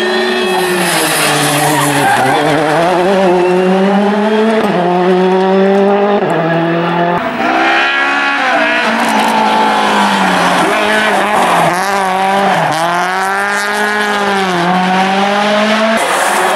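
Rally cars' engines revving hard past the spectators, the engine note climbing and then dropping sharply again and again as the drivers change gear and brake.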